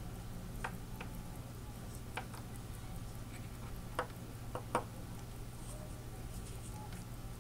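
A few sharp, isolated clicks from an old sterling-silver trench-style wristwatch being handled on a wooden table: turned over and gripped by its crown. The loudest pair of clicks comes a little before the five-second mark, over a steady low hum.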